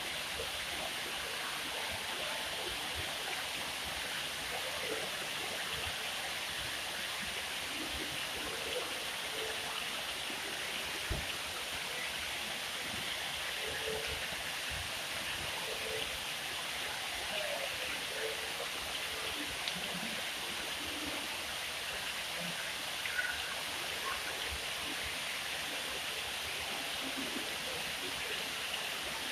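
Dandelion-style sphere fountain spraying water, a steady splashing rush as the spray falls into its basin.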